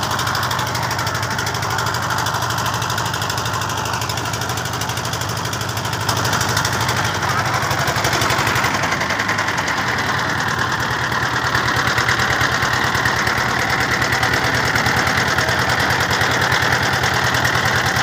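Motor boat engine running steadily with a fast, even knocking beat, a little louder from about six seconds in.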